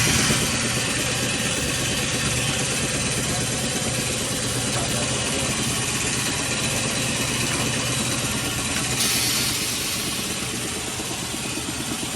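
Steady mechanical running noise from shop machinery: a low hum under an even hiss, the hiss growing brighter about nine seconds in.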